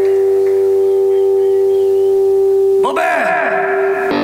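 Amplified electric guitar holding a loud, steady ringing chord; about three seconds in the pitch swoops down and back up several times, then the sound cuts off abruptly just before the end.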